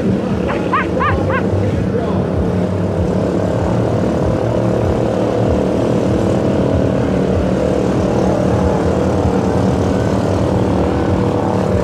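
Quadcopter drone propellers running steadily as it hovers, a continuous multi-tone buzz. A short wavering, voice-like call rises and falls a few times about half a second in.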